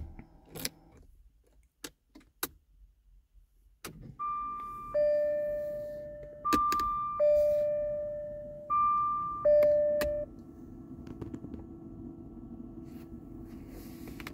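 A few clicks of the key in the ignition, then the 2001 Jaguar XK8's warning chime sounds three times, each a high tone stepping down to a lower one and fading; the chime is normal. Once it stops, the interior air recirculation fan behind the glove box hums steadily, running with the key in the ignition position though the engine is off and no climate controls are on, which the owner is unsure is normal.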